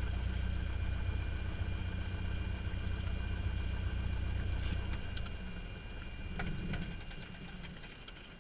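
Cessna 172's piston engine idling, heard from inside the cockpit, then cutting out about five seconds in as the rumble fades away. A steady high whine carries on as the engine noise dies down.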